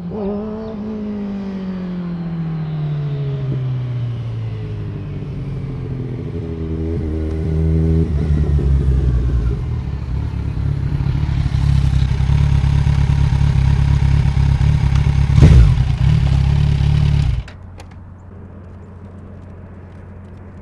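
Motorcycle engine, its pitch falling over the first few seconds, then running louder and steady with a sharp loud burst. It cuts off abruptly near the end, leaving a quieter low steady hum.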